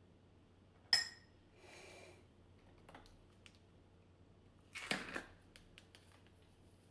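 Kitchenware being handled: a sharp ringing clink about a second in, a soft brief rustle after it, then a short clatter of hard knocks near five seconds.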